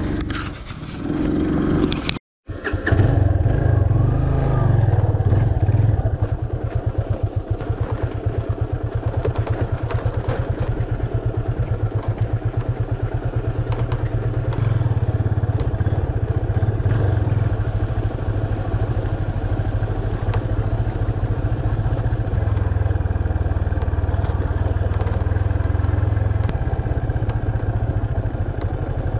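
Yamaha FZ25's air-cooled single-cylinder engine running steadily as the bike is ridden over a rough track. The sound drops out completely for a split second about two seconds in.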